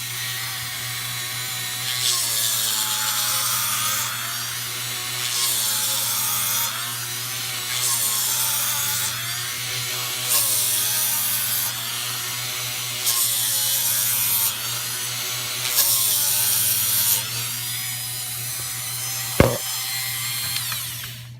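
Dremel rotary tool spinning a hook-and-loop sandpaper pad on a grinding bit, its motor pitch dipping and recovering as it is pressed into the wood. About six passes of sandpaper rubbing along a juice groove, each lasting one to two seconds. There is a single sharp knock near the end, just before the tool stops.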